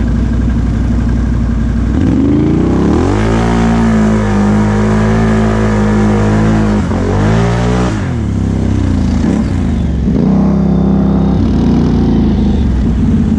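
Can-Am Outlander XMR 1000 ATV's V-twin engine, with a Big Gun exhaust, revving up about two seconds in and holding high revs for a few seconds. It drops off about eight seconds in, then revs up again briefly.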